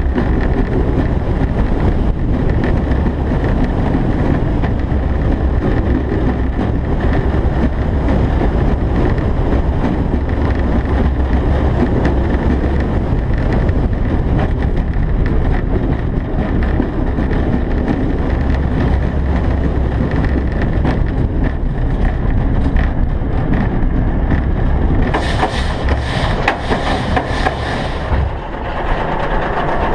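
Giovanola steel hypercoaster train rumbling along its track at speed, with a heavy rush of wind over the microphone. Near the end a harsher hiss lasts about three seconds as the train enters the brake run, and the noise then drops briefly.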